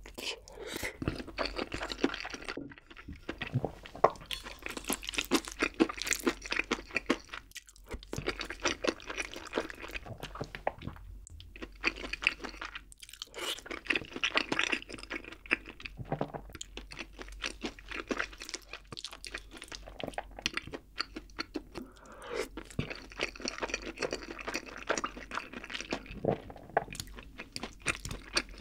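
Close-miked wet chewing of a mouthful of rosé jjimdak, Korean braised chicken with noodles in a creamy sauce, with dense clicking mouth noises and a few brief pauses.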